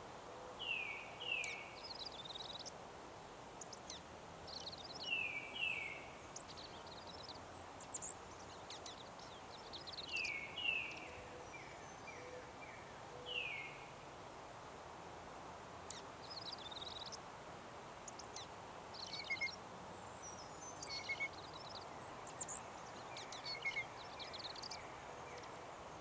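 Small songbirds calling: short whistled notes that slur downward, mostly in pairs during the first half, mixed with clusters of high chirps every few seconds, over steady faint background noise.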